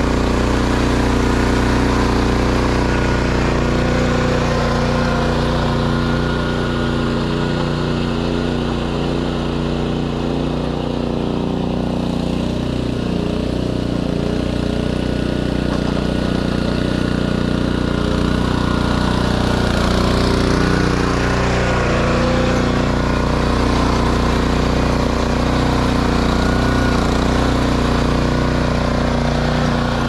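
Radio-controlled lawn mower's small engine running steadily as the mower drives away and comes back; its sound turns duller through the middle and brighter again toward the end.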